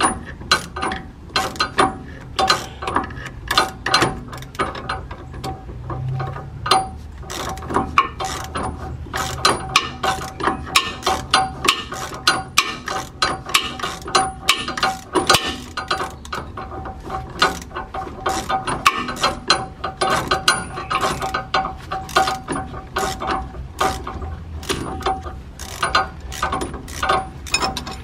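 Hand socket ratchet clicking in short runs of quick clicks as it is swung back and forth, loosening the lower nut of a sway bar end link.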